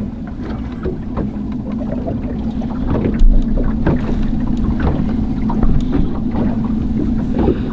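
Boat's motor running steadily with a low hum, under wind rumbling on the microphone as the boat rocks. A single thump about three seconds in.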